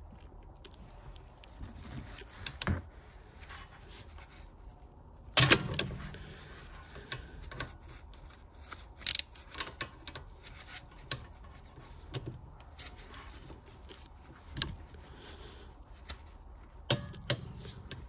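A torque wrench and socket tightening a rear brake caliper bolt to 35 Nm, with scattered metal clicks and clinks. The loudest is a sharp knock about five seconds in.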